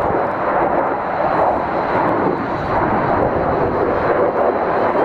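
Jet noise from a Eurofighter Typhoon's twin EJ200 turbofans as it flies a display manoeuvre overhead: a loud, steady rush with no distinct tones.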